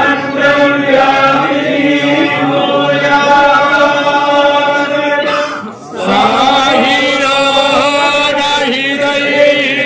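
A group of male voices chanting in unison on long held notes. There is a brief break for breath about halfway through, then the chant resumes.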